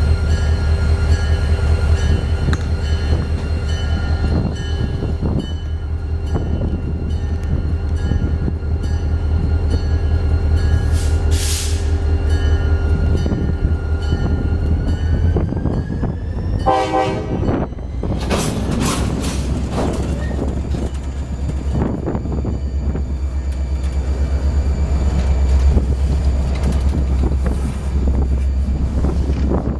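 A train running at the station: a steady low engine hum with several steady whining tones, some of which rise in pitch about halfway through. A short horn-like blast sounds a little past the middle, along with a few brief high hisses.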